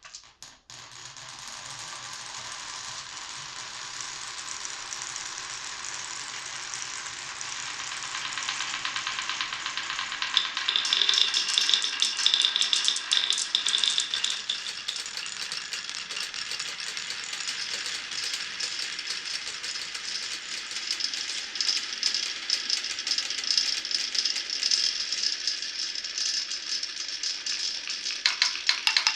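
Many marbles rolling and clattering down a wooden marble-run course, a dense continuous rattle of small clicks that starts suddenly and grows louder about ten seconds in.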